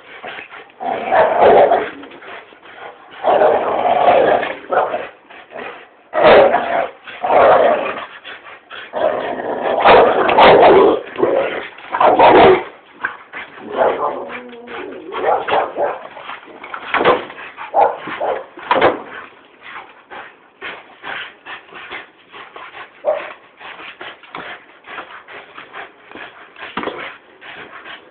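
Dogs barking in loud separate bursts over the first dozen seconds, then quieter short whines and yips with scuffling as they tug at a hanging cloth.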